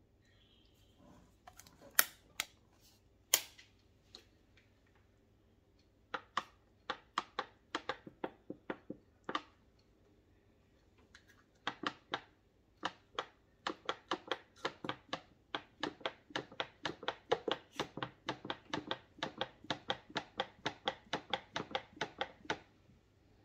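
Repeated sharp knocks of a kitchen utensil striking a hard surface: a few scattered knocks at first, then from about halfway a steady run of about three to four knocks a second until near the end.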